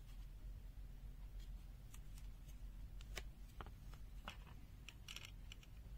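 Faint scattered clicks and light scrapes from handling the small plastic parts of an opened digital multimeter, over a low steady hum.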